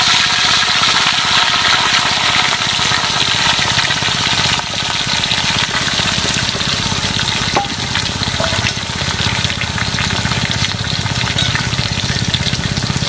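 Whole fish deep-frying in hot oil in a wok, a steady dense sizzle. Partway through, chopped tomatoes, shallots and chilies are tipped into the oil and stirred with a metal spatula, with a single clink.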